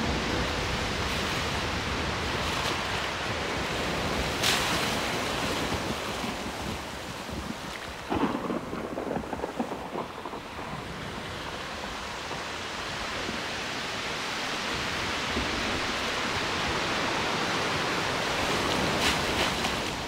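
Thunderstorm recording: steady rain and wind noise, with a sharp crack of thunder about four seconds in and an uneven louder stretch of storm noise a few seconds later.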